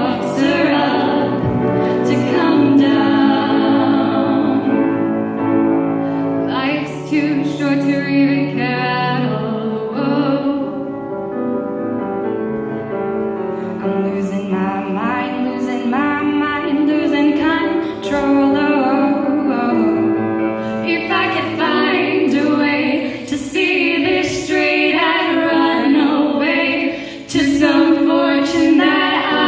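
Music: a song sung by several voices in harmony.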